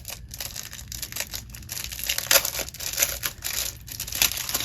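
Packaging being unwrapped by hand: an irregular run of crinkling rustles and sharp crackles, loudest a little over two seconds in and again near the end.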